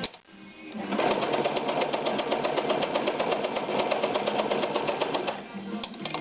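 Ideal 601 sewing machine running at speed, a fast, even clatter of needle strokes starting about a second in and stopping near the end.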